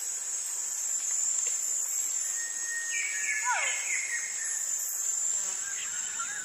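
Steady high-pitched insect chirring, like crickets, with a short falling animal call about halfway through.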